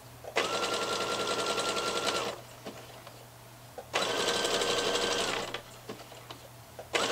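Domestic electric sewing machine stitching in three runs of about two seconds each, its motor whine rising as each run starts and dropping as it stops, with short pauses and a few small clicks between runs.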